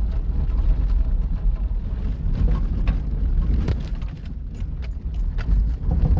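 Steady low rumble of a Chevrolet's engine and tyres heard inside the cab while driving a muddy, water-filled trail, with scattered knocks and rattles. The rumble drops back briefly about four seconds in, then comes up again.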